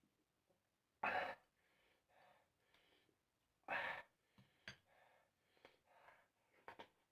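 Mouth sounds of eating thukpa noodle soup: two short loud slurps, about one second and about four seconds in, with softer chewing and breathing sounds and a few small clicks between.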